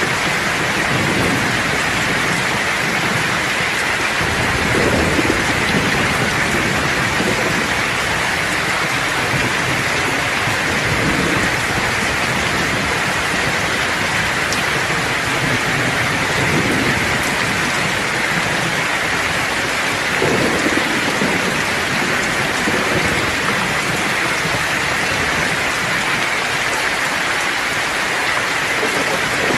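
Steady rain falling hard, with low rolling thunder rumbling in several times: about five seconds in, past the middle, and near the end.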